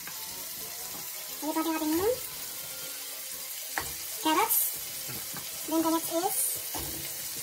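Beef cubes frying in butter in a pot, with a steady sizzle. About four seconds in there is a knock as carrot pieces go into the pot, and the hiss flares briefly. A person's voice breaks in briefly three times.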